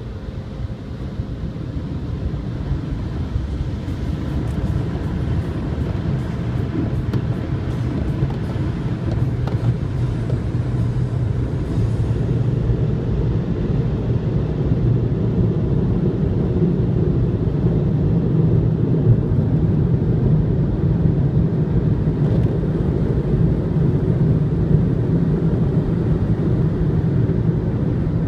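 Car's engine and tyre noise heard from inside the moving car: a steady low rumble that grows louder through the first half and then holds steady.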